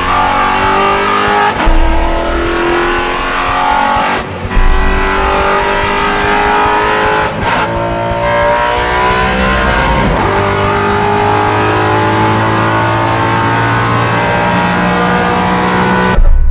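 Maserati Trofeo race car's V8 engine under hard acceleration, its note climbing in pitch through the gears, with quick upshifts breaking it about four times. The sound cuts off suddenly near the end.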